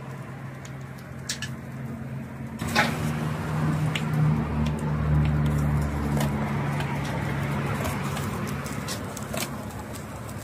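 A motor vehicle's engine running close by, its low hum swelling for a couple of seconds around the middle and then fading. A few sharp clicks stand out, the loudest a little under 3 seconds in.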